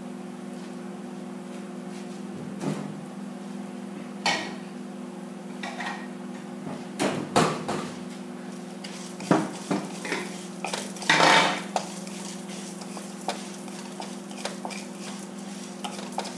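Metal spoon stirring and scraping dals and red chilies around a pan as they roast, in irregular clicks and scrapes that come thickest midway, the loudest about eleven seconds in. A steady low hum runs underneath.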